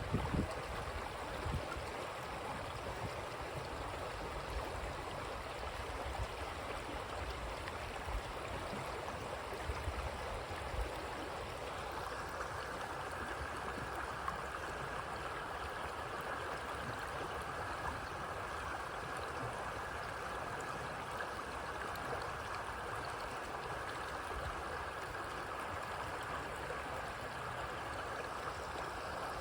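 Creek water running and gurgling steadily. There is low rumbling in the first ten seconds or so, and about twelve seconds in the water sound grows brighter and fuller.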